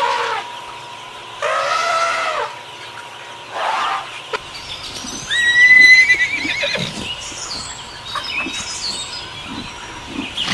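Horse neighing: several separate calls, the loudest a high, quavering whinny about halfway through.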